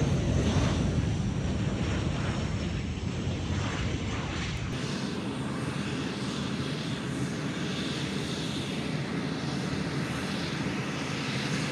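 Business jet's rear-mounted turbofan engines running as the jet rolls along the runway and slows to a taxi: a steady jet hiss and whine that slowly fades. The low rumble drops away abruptly about five seconds in.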